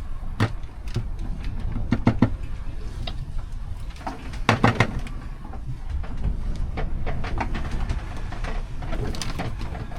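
Scattered knocks and clicks of food being prepared in a small yacht's galley, the loudest cluster about halfway through, over a steady low rumble.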